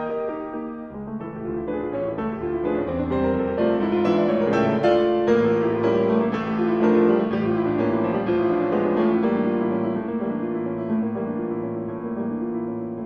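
Background piano music, a run of notes with sustained chords.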